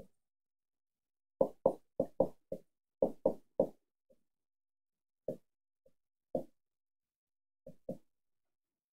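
Dry-erase marker knocking against a whiteboard as labels are written on it: a quick run of about nine sharp taps between about one and a half and four seconds in, then a few scattered taps.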